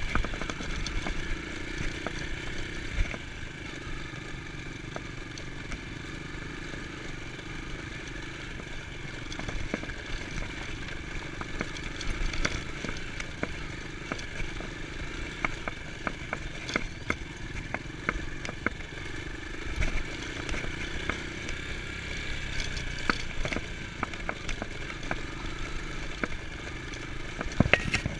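Dirt bike engine running at a steady pace while riding over a rough dirt track, with many sharp rattles and knocks from the bike over the bumps and a louder knock near the end.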